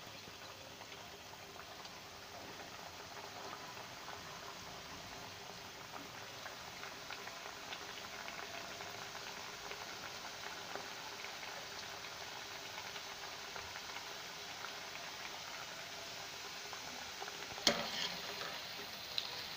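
Mathri dough pieces deep-frying in hot oil in a kadhai: a steady bubbling sizzle that grows slightly louder. Near the end come a couple of sharp metal clinks as a wire skimmer goes into the pan.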